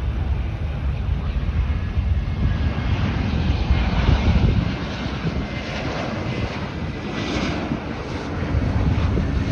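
Airbus A321 jet airliner on final approach with its gear down, its engines making a steady rushing jet noise. The noise is loudest about four seconds in.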